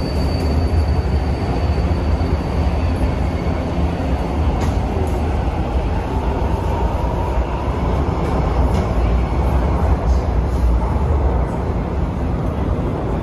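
São Paulo Metro train running through the station: a steady, loud, deep rumble, with a faint whine that rises and falls near the middle.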